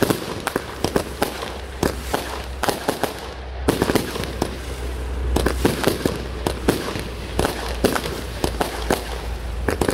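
Consumer 200-gram fireworks going off in quick succession: many sharp bangs and pops at irregular intervals, a few a second, over a low steady rumble.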